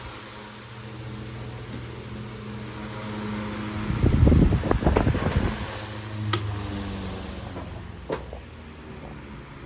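Antique 1911 Robbins & Myers 16-inch gearback table fan running with a steady motor hum. About four seconds in, louder low rumbling swells come, followed by two sharp clicks, and the sound eases off toward the end.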